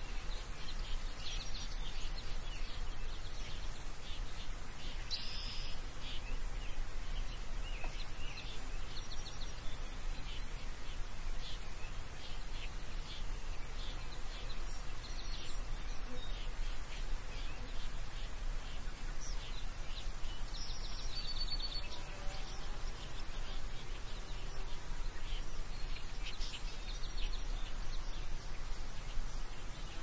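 Countryside ambience: a steady low rumble of background noise, with small birds chirping and giving short trills now and then throughout.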